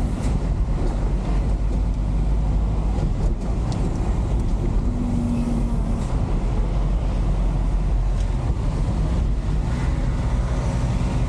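A truck's engine running steadily while the truck drives along a city street, heard from inside the cab, with a low rumble and road noise.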